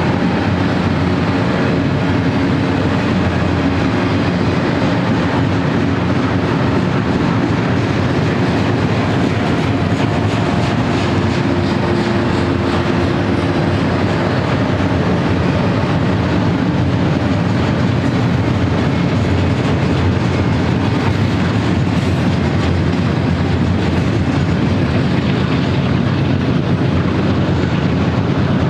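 Double-stack intermodal freight cars rolling past close by: a loud, steady rumble of steel wheels on the rails that runs unbroken.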